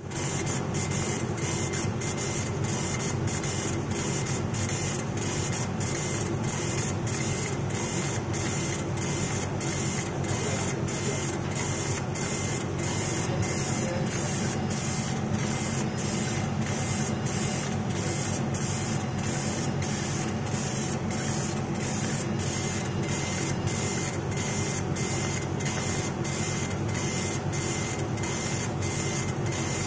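CNC machine running steadily, a continuous mechanical whir with a regular pulse about twice a second.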